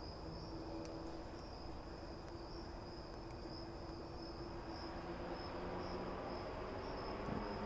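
Crickets trilling steadily in the background, one continuous high-pitched note with a slight regular pulse.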